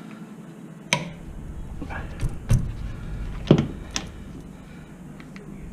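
Clinks and knocks of metal hand tools, a ratchet and socket being handled at the rear brake caliper bolts. There are about five sharp knocks, the loudest about three and a half seconds in, over a low rumble.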